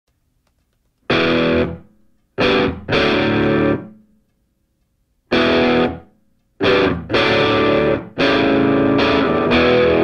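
Background rock music: distorted electric guitar chords in short, hard-stopped blocks, with dead silent gaps between them.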